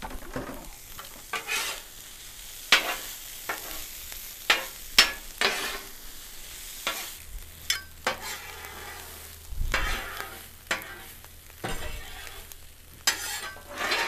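Metal griddle spatulas scraping and clacking on the steel top of a Blackstone flat-top griddle, in irregular strokes as they toss rice and steamed broccoli and carrots, over a light sizzle of the food warming in oil.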